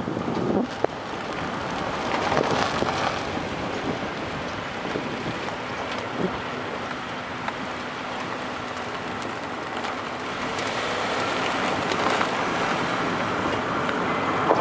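Steady road and wind noise from a car driving slowly, with a couple of light knocks.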